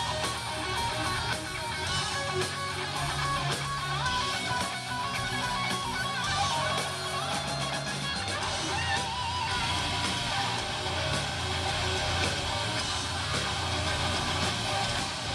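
Metal band playing live without vocals: distorted electric guitars over bass and drums, with a lead guitar line whose notes waver and bend in pitch. The low end shifts about halfway through.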